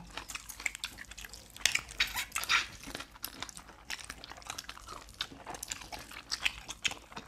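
Close-miked eating of barbecued chicken: wet chewing, lip smacks and meat being pulled apart, a string of short sharp clicks and smacks with a longer scratchy tearing sound about two seconds in.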